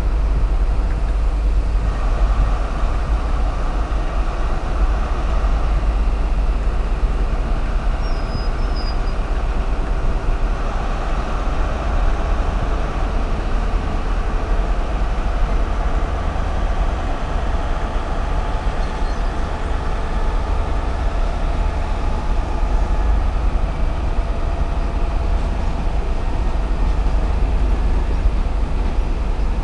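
Passenger train moving along the far platform: a steady rumbling running noise over a strong low rumble, swelling somewhat in the middle.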